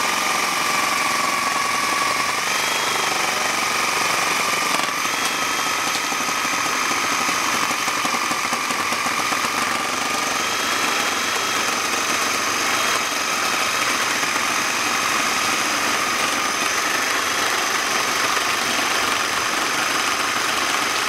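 Ryobi reciprocating saw with a Lenox bimetal blade running steadily, cutting through a landscape timber with a nail or screw in it. The motor holds a steady whine until it winds down with a falling pitch just after the end.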